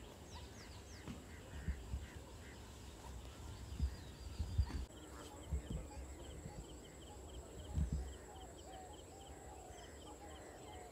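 Faint wild outdoor ambience: scattered bird calls, with a high chirp repeating a few times a second from about halfway through, and a few short low bumps.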